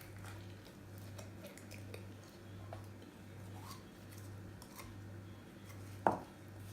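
Faint clicks and taps of a plastic slime container being opened and handled, with a sharper click about six seconds in, over a low steady hum.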